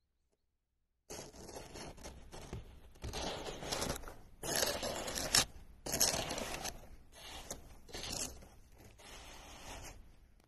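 Snow being scooped up, crunching and scraping in a run of uneven strokes, with the loudest scrapes about halfway through.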